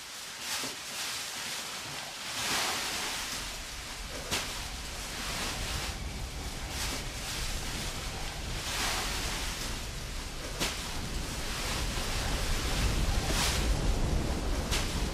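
Eerie horror-film sound design: a dense hissing drone like rushing wind that slowly builds, with whooshing swells every second or two and a deepening low rumble towards the end.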